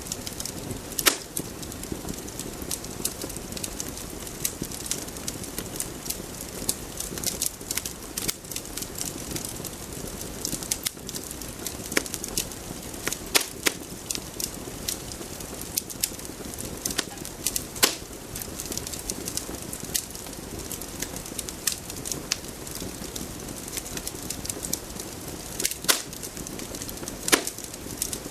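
Steady crackling hiss with irregular sharp pops and snaps scattered through it, in the manner of a fire crackling.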